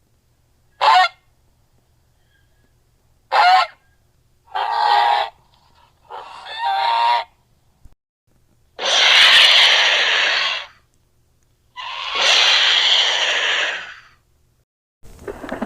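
Mutant peacock creature sound effect: a series of six bird-like calls with gaps between them. The first two are short, then two slightly longer, then two long, loud calls near the end.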